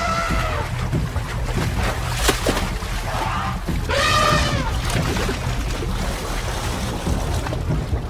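African elephant charging through shallow river water with heavy splashing, trumpeting twice: one arching call at the start and another about four seconds in.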